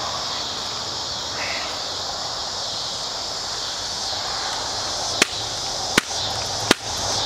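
An AR-15 with a screw-reinforced 3D-printed PCTPE plastic lower smashed against grassy dirt in a destruction test: three sharp knocks, about one a second, in the last couple of seconds. A steady chirring of insects runs underneath.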